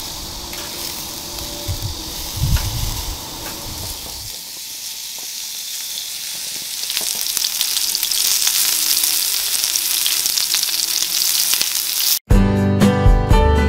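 Meat sizzling on the grate of a small folding tabletop grill, with a few low knocks of handling in the first few seconds. The sizzle grows louder past the middle, then cuts off about a second before the end and music starts.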